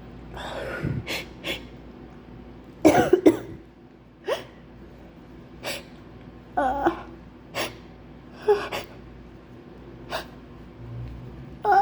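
A woman's run of sneezes, about a dozen short, partly held-in bursts with breaths between, the loudest a double sneeze about three seconds in; the sneezing comes from a flu.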